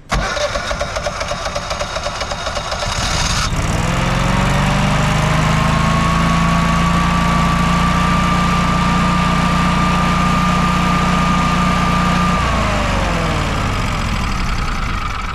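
Honeywell home standby generator's engine starting on manual for its first run after an oil change. It rises to a steady running speed over the first few seconds and runs steadily. About twelve seconds in it is shut off and winds down, its note falling.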